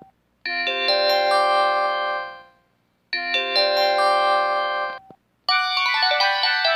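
Mobile phone's built-in polyphonic alert tone: a short chiming melody in bell- and mallet-like notes plays twice with a brief gap, then a busier run of notes starts about five seconds in.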